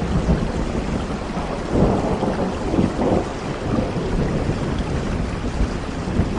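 Heavy rain falling steadily with a low rumble of thunder. The thunder swells louder about two seconds in and eases off after about a second and a half.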